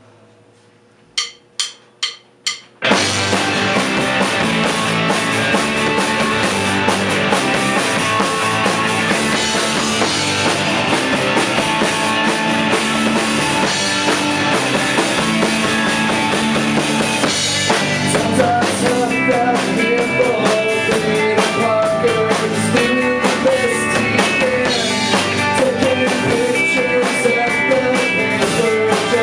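Four sharp clicks of a count-in, then a live band comes in loud, with drum kit, and plays on steadily.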